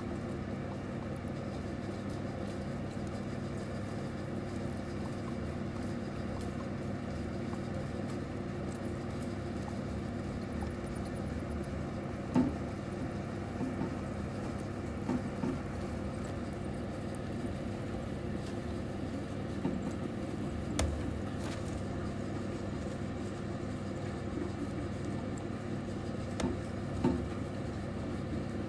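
A steady low background hum, with a handful of soft rustles and small clicks from multimammate mice moving about in coconut-husk bedding as they feed, mostly in the second half.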